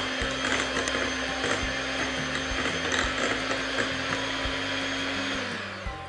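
Electric hand mixer running on low speed with its beaters in cake batter in a glass bowl: a steady motor whir with some ticking. It winds down near the end as it is switched off.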